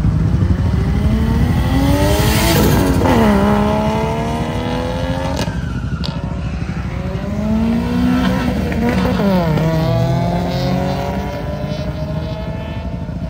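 Cars accelerating hard past on the road, engine notes climbing in pitch and then dropping sharply, once about three seconds in and again about six seconds later.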